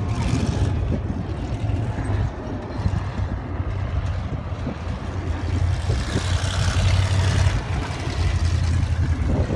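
Sprint car's V8 engine running as the car laps the dirt oval at a distance, growing louder for a few seconds past the middle as it comes nearer.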